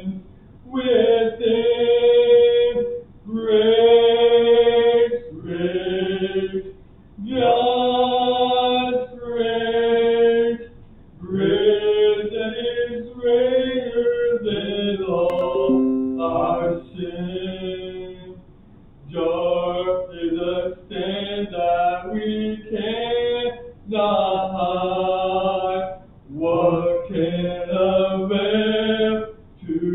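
A hymn being sung slowly in held notes, phrase by phrase, with short breaks between the lines.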